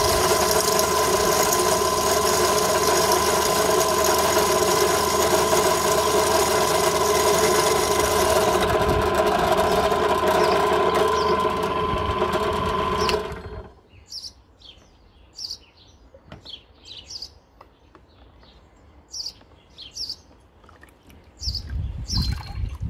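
Pillar drill's motor running steadily with a whine, switched off about 13 seconds in once its bit has cut through a glass bottle held under water. Then short bird chirps, and near the end water splashing and pouring out of the freshly drilled hole as the bottle is lifted from the tub.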